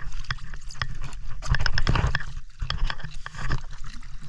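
A person wading into cold sea water in boots: irregular knocks and clicks of footsteps on rock, with water sloshing, over a steady low rumble.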